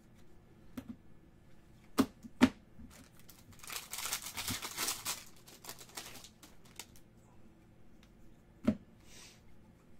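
A trading-card pack wrapper being torn open and crinkled, a dense rustle lasting a couple of seconds about midway. Before it come two sharp clicks close together, the loudest sounds here, and a single click comes near the end as the cards are handled.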